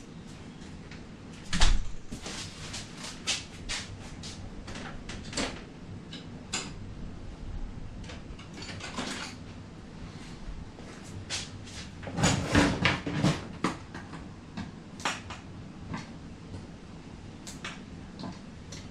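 Irregular clicks, knocks and clatter of hand tools and metal parts being handled, with one loud thump about a second and a half in and a flurry of clattering around twelve seconds in.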